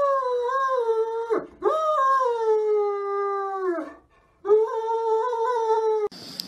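Great Dane howling and whining in three long drawn-out cries, each wavering and then sliding down in pitch as it ends.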